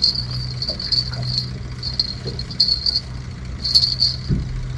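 A small bell on a fishing rod jingling in short, irregular clusters, over a steady low hum, with a single dull thump near the end.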